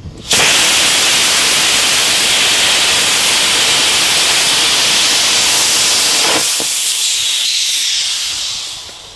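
Amateur experimental solid rocket motor with a moon-burner grain and a graphite-insert phenolic nozzle firing on a static test: it lights with a few crackles, then burns with a loud, steady rushing noise for about six seconds before tailing off and dying away near the end. A burn of about 7 seconds in which the liner and nozzle held up, with no motor failure.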